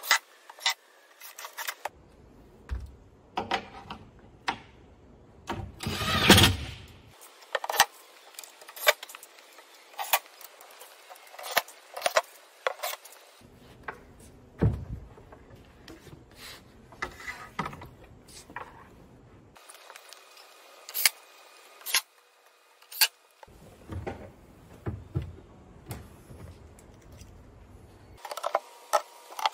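Sounds of assembling a plywood cabinet: a cordless drill driving screws into the panels, with a longer, louder drill run about six seconds in, among many sharp knocks and clicks of wooden parts and hardware being handled and fitted.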